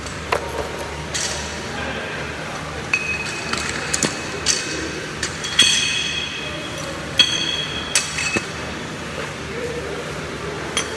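Barbells and weight plates clinking and clanking on a gym floor as a loaded bar is lifted and set down, about nine sharp metallic knocks with a few ringing briefly, over background voices.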